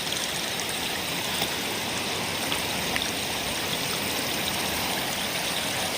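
Mountain stream flowing with a steady rush of water.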